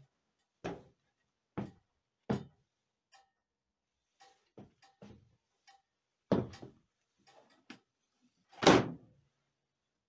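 A series of sharp knocks and clunks as the riding mower's plastic hood and panels are handled, ending in the loudest, heavier thump near the end as the hood is lowered shut.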